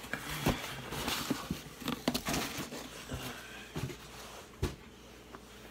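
A cardboard box and its packaging being handled: scattered knocks, taps and rustling, quieter over the last second or so.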